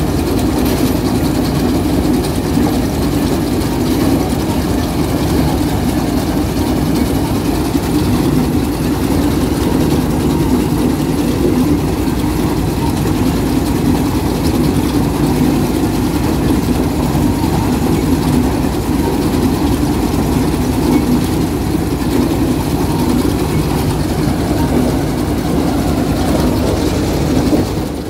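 Combine harvester's diesel engine running steadily at a constant speed, a loud, even mechanical drone.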